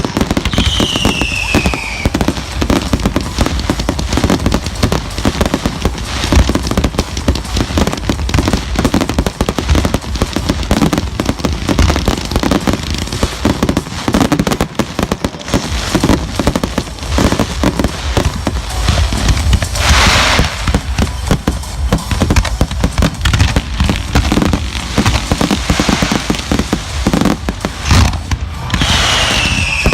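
Fireworks display: rapid, continuous bangs and crackling shells. A whistling firework falls in pitch near the start and again near the end, and a burst of hissing crackle comes about two-thirds of the way through.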